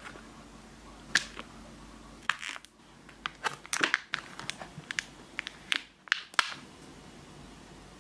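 A thin clear plastic chocolate mold being flexed and pressed from behind, crackling and clicking irregularly as the set chocolates pop out of their cavities.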